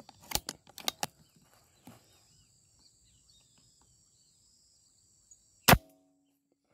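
A few light clicks of rifle handling in the first second, then a single sharp air-rifle shot near the end with a short ringing after it. Insects trill steadily throughout.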